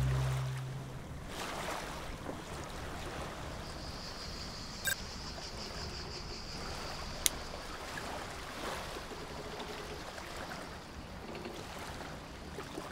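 Water washing around a sailboat's hull with a light wind, a steady even wash, broken by two sharp clicks about two seconds apart near the middle.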